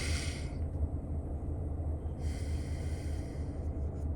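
A person breathing heavily through the nose, two long sniffing or snorting breaths, the first at the start and the second about two seconds later, over a steady low hum.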